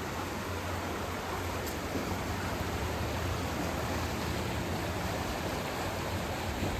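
Flooded creek rushing past in strong current: a steady, even rushing noise with a low rumble underneath.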